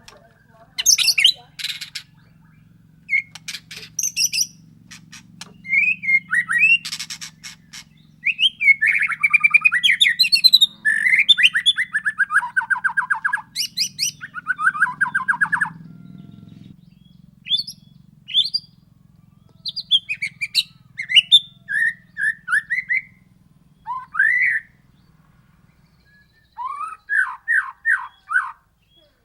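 White-rumped shama (murai batu) singing a loud, varied song of whistled glides, rapid trills and sharp clicking notes in quick succession. A faint low hum sits underneath and fades out past the middle.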